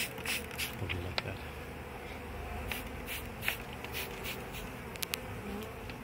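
Swarm of honeybees clustered in a nucleus box, buzzing with a steady low hum. A scattering of short, sharp clicks sounds through it, several of them close together about three and five seconds in.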